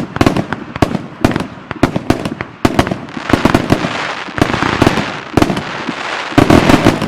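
1.3G display fireworks going off: a rapid run of sharp bangs, then from about three seconds in a hissing wash under further bangs, with a tight cluster of loud reports near the end.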